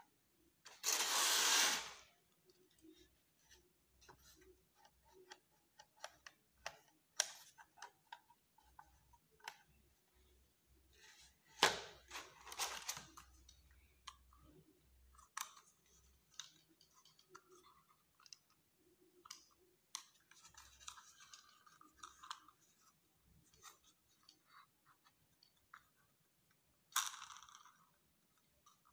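Handling noises of a toy RC helicopter and its plastic remote: scattered light clicks and knocks, with three short bursts of plastic crinkling, near the start, about halfway through and near the end.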